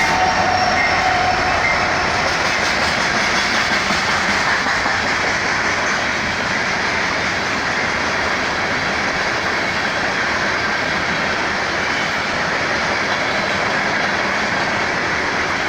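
Two BNSF freight trains passing at the same time: a steady, loud rolling rumble and rattle of freight cars on the rails.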